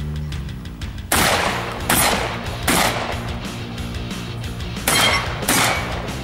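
A shotgun fired five times: three shots about a second apart, then a pause, then two more in quick succession. Background music plays under the shots.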